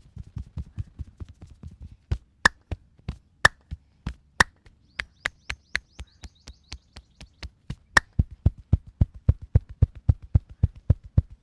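Percussive massage: hands striking the body in quick, rhythmic succession, settling into a steady beat of about four strikes a second in the latter part, with a few sharper, louder slaps between about two and eight seconds in.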